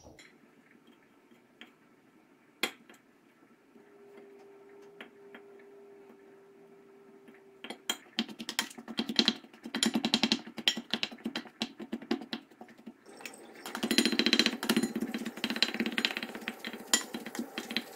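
A knife and then a plastic dough scraper chopping cold butter into flour in a glass bowl, rapid clicking taps against the bowl's bottom as the butter is cut into fine crumbs. The taps start about halfway through and grow denser near the end.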